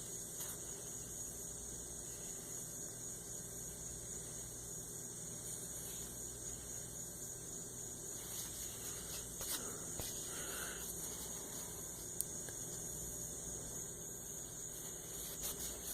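Quiet room tone: a steady low hum and high hiss, broken by a few faint clicks and small handling sounds.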